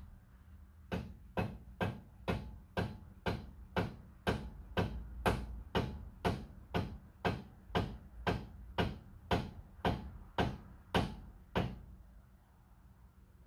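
Steady hammer blows on metal, about two a second, some two dozen evenly spaced strikes that stop near the end.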